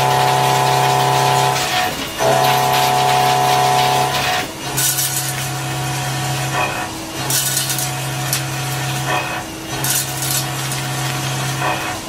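Milling machine end mill cutting a steel block: a steady pitched machining hum with a hiss of cutting and chips, briefly dropping out about every two and a half seconds.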